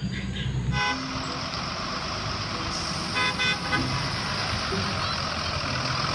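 Electronic sound effects from a toy school bus: a steady engine-like noise with short horn toots about a second in and again around three seconds in.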